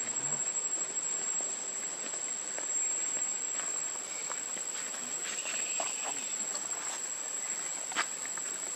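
Steady high-pitched drone of forest insects. Scattered faint rustles and clicks over it, with one sharp click near the end.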